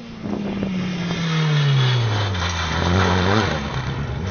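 Rally car engine at high revs, its note falling steadily as the car goes past, then holding lower. There are a few sharp cracks about half a second in.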